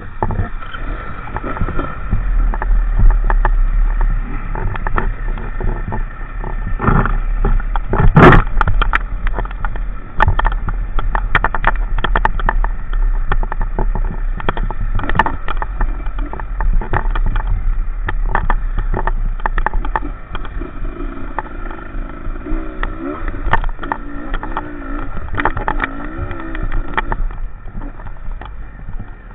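Enduro motorcycle riding up a rough hill climb: a steady deep rumble with many sharp knocks and rattles, the loudest about eight seconds in. In the second half the engine note wavers up and down.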